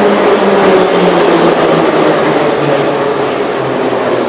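Metrowagonmash 81-717/714 metro train cars running past close by, slowing as the train pulls into the station. Loud wheel and running noise under a motor whine that falls slowly in pitch.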